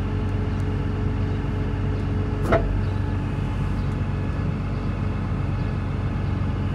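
Caterpillar M316D wheeled excavator's diesel engine idling steadily, heard inside the cab. One brief sharp sound cuts in about two and a half seconds in.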